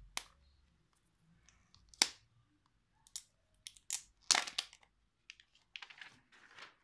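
Protective plastic film being peeled off the back of a new smartphone: a string of separate sharp crackles and ripping pulls, the loudest about two seconds in and just past the middle, with a denser run of crinkling near the end.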